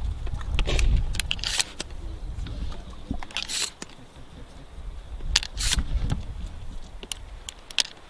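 Scattered metallic clicks and clinks from shotgun shells and the shotgun being handled, over a low rumble in the first couple of seconds.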